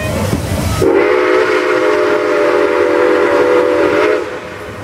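Nickel Plate Road 765 steam locomotive's whistle blowing one long steady blast, a chord of several notes, starting about a second in and lasting about three and a half seconds.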